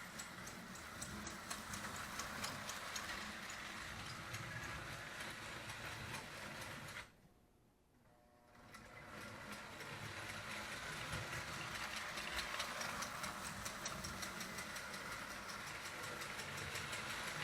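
Vintage Marx O27 toy steam locomotive running on its track: a steady motor hum with rapid, even clicking from its chug-chug sound unit and the wheels. The sound drops away almost to silence for about a second and a half around seven seconds in, then comes back.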